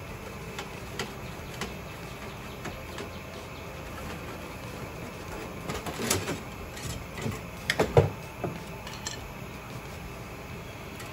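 Hands working a wire at a camper trailer's metal underframe give scattered sharp clicks and knocks, with a denser, louder cluster about six to eight seconds in. A steady hiss runs underneath.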